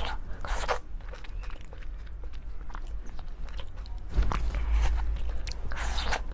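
Close-miked eating: irregular crunchy bites and chewing, louder near the start and again from about four seconds in.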